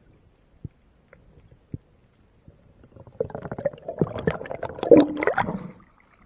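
Underwater bubbling and rushing water, heard through an action camera's waterproof housing: a few faint clicks, then from about three seconds in a loud gurgling rush that peaks near five seconds and stops just as the freediver breaks the surface.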